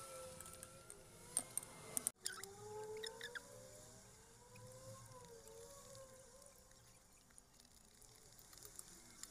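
Eating with a metal fork and spoon: a few sharp clicks, mostly in the first three and a half seconds, over faint wavering tones that glide up and down. The sound drops out for an instant about two seconds in.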